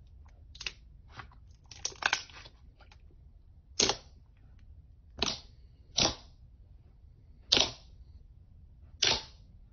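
Glossy purple slime pressed and poked by fingers, popping as trapped air escapes. There are a few small crackles in the first two seconds, then five sharp, loud pops about a second or so apart.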